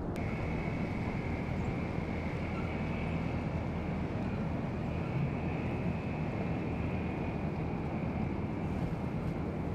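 Steady low drone of boat engines with wind and water noise on the river, and a steady high whine over it.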